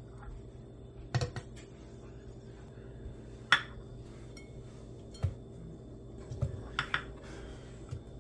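Kitchenware being handled and set down: a handful of separate knocks and clinks, the sharpest about three and a half seconds in, with a quick cluster near the end.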